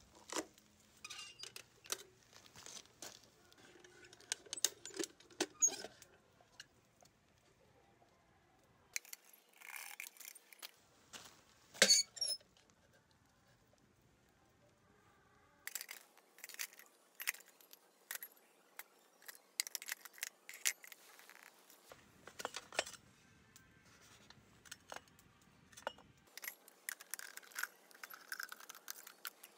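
Light metal clinks and knocks from small sheet-steel camping stoves and their parts being handled and set down, in scattered groups with pauses and one louder clatter a little before halfway.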